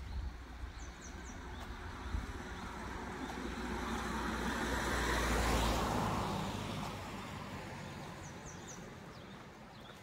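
A motor vehicle passing on a nearby road, growing louder to a peak a little past halfway and then fading away. Faint bird chirps come through early on and again near the end.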